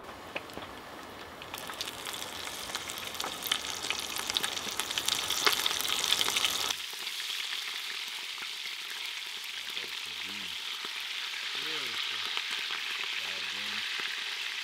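Skin-on grouse breast and other pieces of meat frying in hot oil in a cast-iron Dutch oven: a dense, crackling sizzle. It is louder for the first seven seconds or so, then drops suddenly to a steadier, quieter sizzle.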